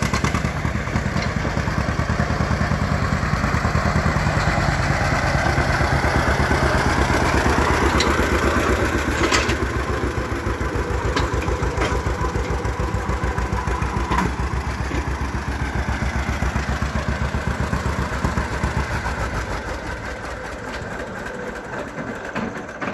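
1950 John Deere AR tractor's two-cylinder gasoline engine running under way with a steady, even pulsing beat, growing quieter near the end.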